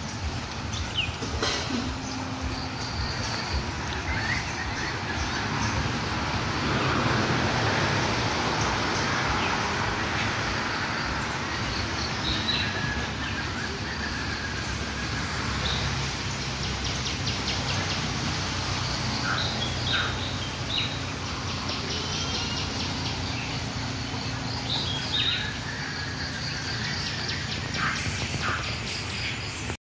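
Several wild birds chirping and calling in short, scattered notes over a steady outdoor background hiss.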